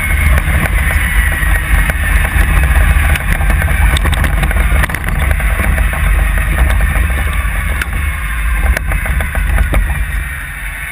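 Wind buffeting the microphone of a camera mounted on a jet car as it slows down the drag strip under its deployed drag parachute, with rattles and a faint whine that sinks slowly in pitch. The noise eases near the end as the car comes almost to a stop.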